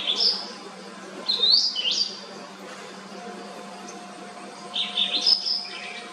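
White-browed wagtail singing: three short phrases of high, rising chirps, one at the start, one about a second and a half in, and one about five seconds in.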